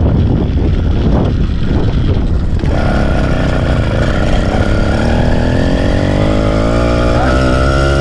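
Motorised bicycle kit engine catching about a third of the way in, once its fuel is back on, then running with its pitch slowly rising as the bike picks up speed. Before it catches there is only wind and rolling noise.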